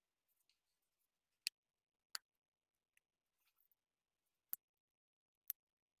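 Hard-drive iPod's plastic front and metal back case snapping together as the case is pressed closed: four sharp clicks as the retaining clips catch, with a few faint ticks between them.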